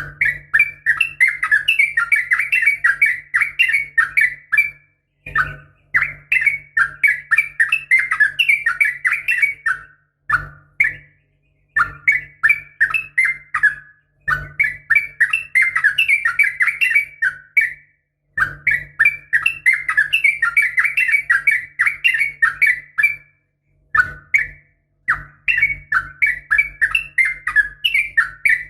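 Yellow-vented bulbul (trucukan) calling in rapid, bubbly chattering phrases of a few seconds each, broken by short pauses: the female's call to a male, used as a lure to set caged males singing.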